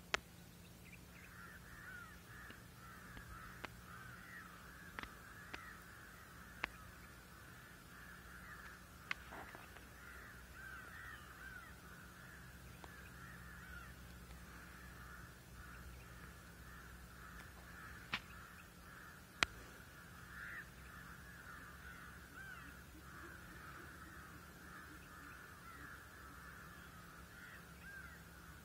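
Faint, continuous chorus of many overlapping short chirping animal calls, with a handful of sharp clicks scattered through it.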